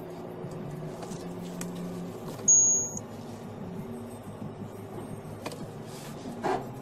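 Steady road and engine hum heard inside a moving car's cabin. About two and a half seconds in comes a short, high-pitched electronic beep lasting about half a second, the loudest sound.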